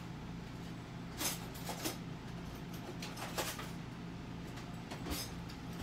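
Someone rummaging through kitchen drawers and cabinets for a knife: about five scattered knocks and clatters over a steady low hum.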